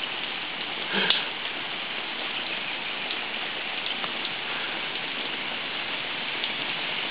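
Steady hiss of rain and floodwater running over a flooded street, with one brief louder swell about a second in.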